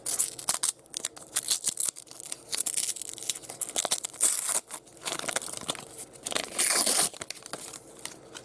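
Wax-paper wrapper of a repacked baseball card pack being torn open and crinkled: an irregular run of crackling tears and rustles.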